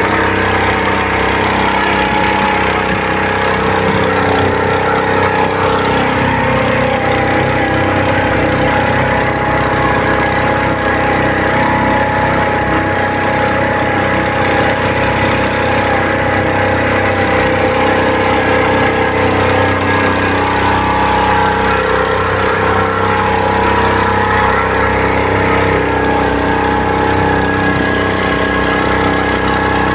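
Small red motor at the stern of a wooden river boat, running steadily under way and pushing the boat along.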